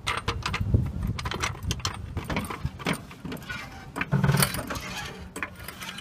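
Metal floor jack clanking and rattling in a run of irregular clicks as it is set under the car's side jack point and worked to lift the car.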